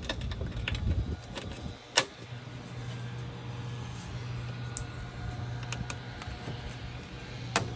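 Sharp plastic clicks as grille tabs and push-in trim clips are snapped into place on a Mercedes Sprinter's front grille, loudest about two seconds in and again near the end, with a few lighter clicks between. A steady low hum runs underneath.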